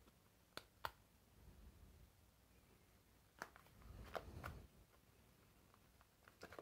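Quiet, faint clicks and handling noise of a Parkside Performance impact driver's plastic housing halves being eased apart by hand. Two sharp clicks come about half a second in, two or three more near the middle with a low rustle of handling, and a few small clicks near the end.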